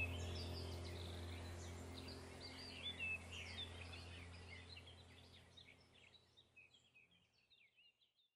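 Goldfinches twittering with quick, high chirps over a steady low hum, the whole fading out to silence over the last few seconds.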